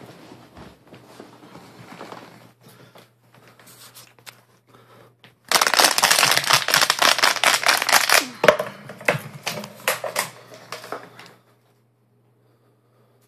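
A Chihuahua biting and crunching an empty plastic water bottle: loud, dense crinkling and crackling of the thin plastic, with faint rustling before it. It stops suddenly near the end.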